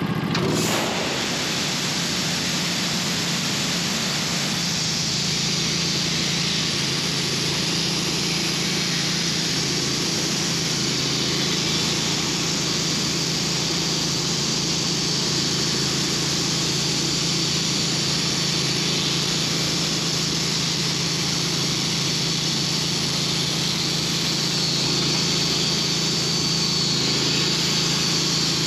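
Bandsaw mill motor running steadily under load as the mill saws along a log, with its spiked PreCutter wheel scraping a groove through the bark ahead of the blade.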